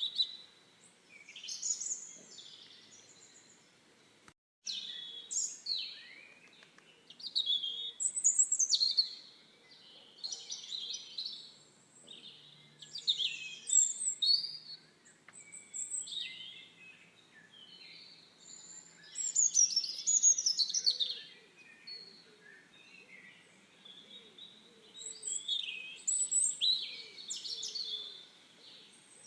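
Songbirds chirping and singing in short, high, repeated phrases, with a brief gap about four seconds in.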